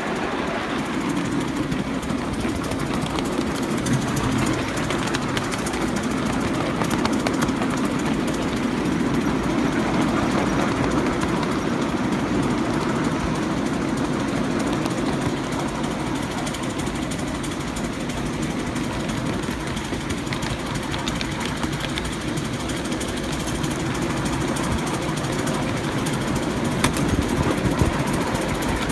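Miniature Class 33 diesel-outline locomotive 33029 and its riding car running steadily along the miniature railway track: a continuous mechanical rumble with a fast rattle from the wheels and running gear.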